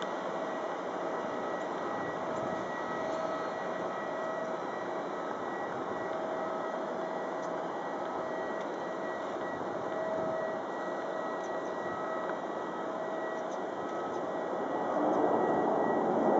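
Boeing 737-500's CFM56 turbofan engines at take-off thrust during the take-off roll and climb-out: a steady rushing noise with faint humming tones, growing louder about fifteen seconds in as the airliner comes closer.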